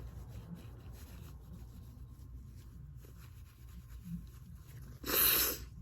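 Faint rustling, then about five seconds in one short, loud burst of breath from a woman with a cold.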